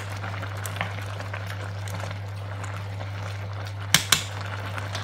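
Pot of pasta water at a rolling boil, bubbling steadily over a constant low hum, with two sharp clicks close together about four seconds in.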